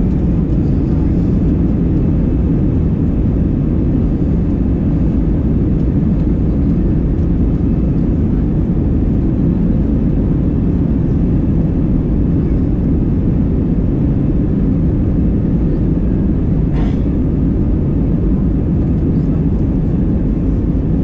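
Steady jet engine noise and rumble of an Airbus A320 moving along the runway, heard from inside the passenger cabin behind the wing.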